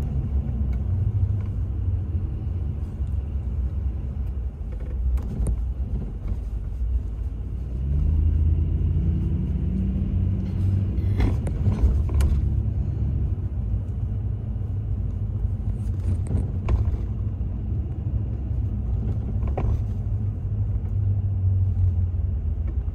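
Car driving along a street: a steady low rumble of engine and tyres, which grows louder and rises a little in pitch about eight seconds in. A few light clicks come partway through.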